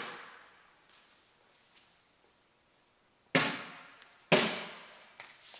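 Single strong strikes on a drum, each a cue to change focus. The tail of one strike fades at the start, two loud strikes land about a second apart past the middle, and a lighter hit follows; each rings on in the room for about a second.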